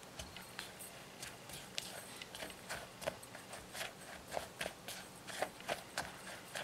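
A spoon stirring dry flour, almond flour and beet sugar in a glass bowl to mix a crumble topping, making repeated soft scrapes and clicks against the glass, a couple a second.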